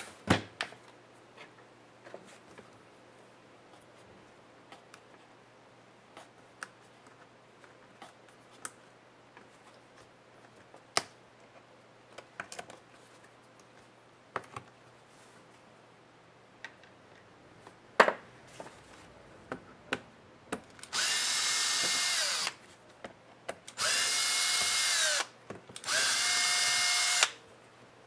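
Cordless drill-driver unscrewing a laptop's bottom-case screws in three short runs, its motor whining up and winding down each time. Before it, faint clicks and taps of hands handling the plastic case, with one sharper click shortly before the drill starts.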